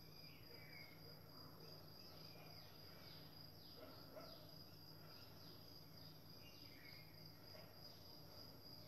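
Near silence: faint room tone with a steady high-pitched tone.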